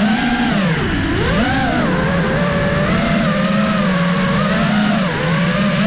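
5-inch FPV freestyle quadcopter's brushless motors and propellers whining, the pitch dipping and climbing as the throttle changes, with a deep dip about a second in.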